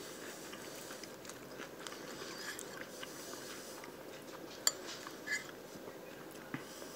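A person chewing a mouthful of food close to the microphone: soft, wet chewing with small mouth clicks, and a sharp click about two-thirds of the way through.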